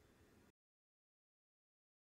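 Near silence: faint room tone for about half a second, then the sound cuts to complete silence.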